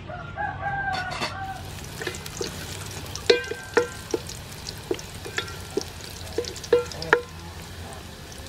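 Chopped garlic sizzling in hot oil from about a second in, while a wooden spatula stirs and knocks against the side of an aluminium pot in a dozen or more sharp, briefly ringing taps. A rooster crows once near the start.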